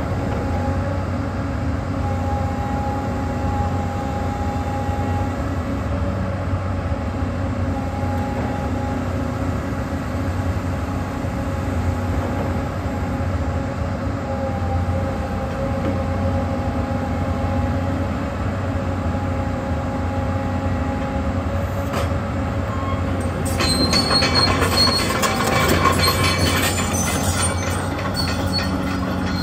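Hyundai R360LC-7A crawler excavator running steadily, a low diesel engine hum with a steady hydraulic whine over it. From about 24 seconds in it grows louder, with hissing and high squeals as the boom is raised.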